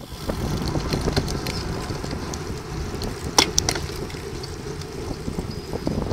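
Wind buffeting the microphone of a bike-mounted camera on a road bike, heard as a steady low rumble with tyre and road noise. There are a few light ticks, and two sharp clicks come about three and a half seconds in.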